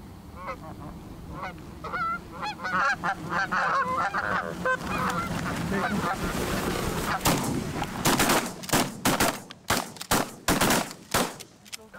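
Canada geese honking as a flock comes in over decoys, the calls growing busier, then from about seven seconds in a rapid volley of shotgun blasts, a dozen or so close together, with the geese still honking between shots.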